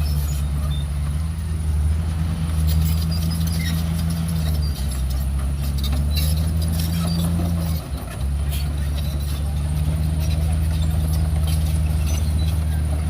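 Heavy diesel engine of an earthmoving machine running steadily under load, with a brief dip about eight seconds in, and scattered clicks and clanks over it.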